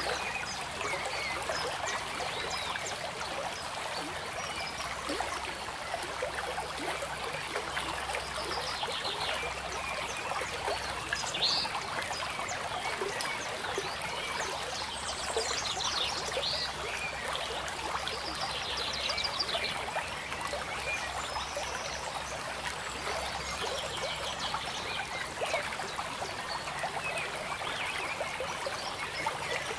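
Steady trickle of running water, as from a small stream, with a few short rattling calls from small animals scattered through it.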